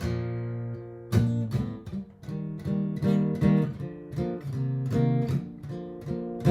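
Martin GPCPA4 acoustic guitar strummed in chords: a full strum at the start and another about a second in, then a steady rhythm of strums.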